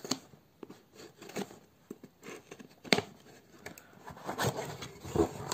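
Scissors cutting the packing tape on a cardboard shipping box, then the box being handled and turned over: irregular snips, scrapes and cardboard rustling, with one sharp click about three seconds in.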